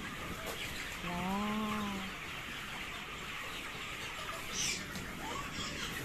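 A large flock of broiler chickens makes a continuous din of peeping and clucking. About a second in, one lower, drawn-out call lasts about a second. A short, sharp noise stands out just before the five-second mark.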